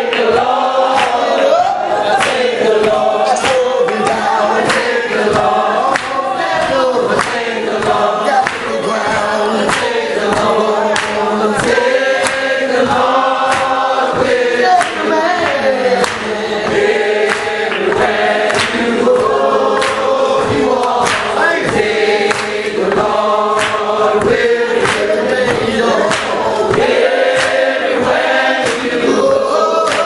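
Congregation of men and women singing a hymn together without instruments, many voices holding each note and moving on together.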